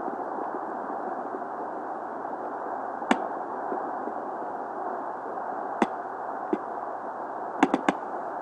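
Prenatal Doppler ultrasound audio: a steady whooshing hiss with a few sharp clicks, one about three seconds in, one about six seconds in and three in quick succession near the end.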